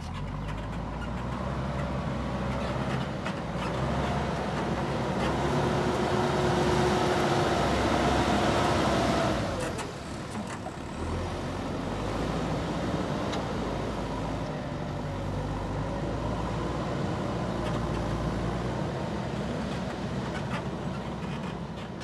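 JCB 3DX backhoe loader's diesel engine running under work, revving harder with a whine for several seconds, then dropping back suddenly about ten seconds in and running on steadily.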